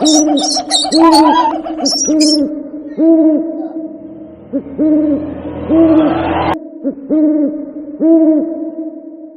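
Owl hoot sound effect: one low hoot repeating about once a second at the same pitch. High squeaky chirps sound over it in the first two seconds, and a rising hiss swells up and cuts off suddenly past the middle.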